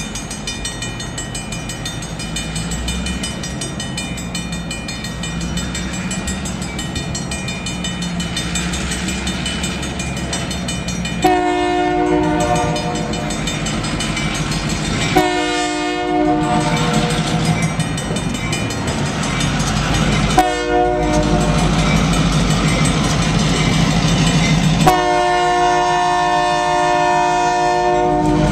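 Union Pacific diesel locomotive sounding its horn for a grade crossing in the standard long, long, short, long pattern, the last blast held as it reaches the crossing. Its engine rumble grows steadily louder as it approaches, with the crossing bell ringing throughout.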